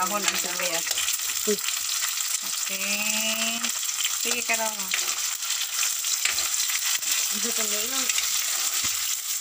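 Chopped tomatoes sizzling in a hot black wok as they are stir-fried, a metal spatula scraping and clicking against the pan.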